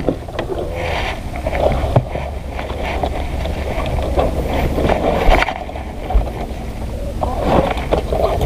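Leafy branches rustling and crackling as they are grabbed and pulled on from a small wooden boat, over a steady low rumble of wind on the microphone. There is a single sharper knock a little past halfway.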